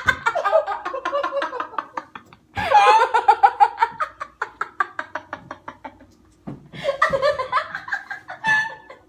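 Women laughing hard in runs of quick, pulsing 'ha-ha' bursts, broken by short pauses for breath, set off by a sudden burp.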